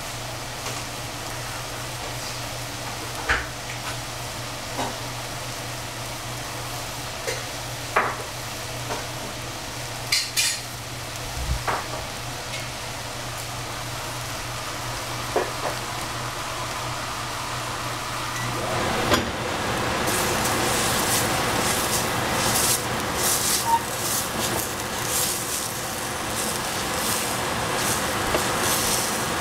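Celery and cabbage sizzling and crackling in a stainless steel saucepan over a gas flame, with scattered small pops over a steady low hum. About two-thirds of the way in the sizzle grows louder and busier, and near the end a wooden spatula stirs and scrapes the vegetables against the pan.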